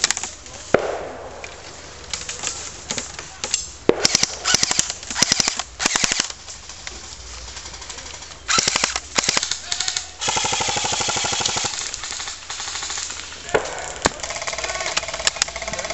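Airsoft guns firing full-auto: several short rattling bursts of rapid pellet shots, then one longer burst of about a second and a half, with a few single cracks between them.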